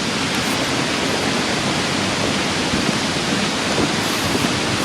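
Steady rushing of a fast-flowing mountain stream.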